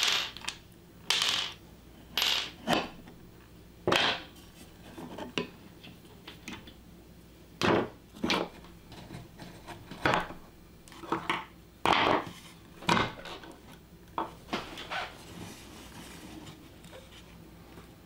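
Irregular sharp metallic clicks and clinks of a screwdriver working the screws out of a speaker's back panel, with screws being handled and set down, about one every second or so.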